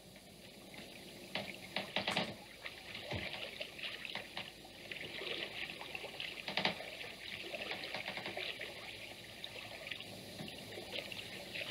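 Faint rustling and irregular clicking of card scenery pieces being slid into a toy theatre stage, with a few louder clicks about two seconds in and again at six and a half.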